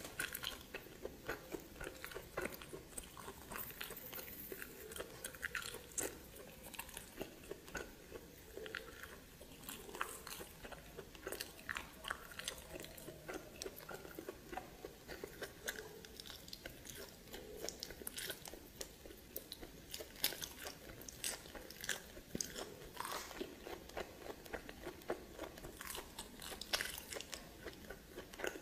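A person biting and chewing steamed snake, with many irregular crisp crunches and wet mouth sounds.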